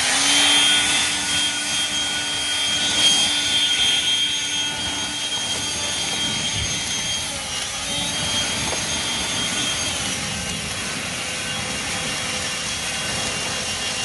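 Hart 40-volt brushless turbo fan leaf blower running: a steady whine over rushing air. Its pitch dips briefly about halfway through and again a few seconds later.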